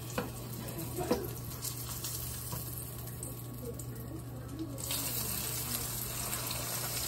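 Egg frying in hot oil on high heat, a steady sizzle that grows louder and brighter about five seconds in, over a low steady hum, with a couple of light knocks near the start.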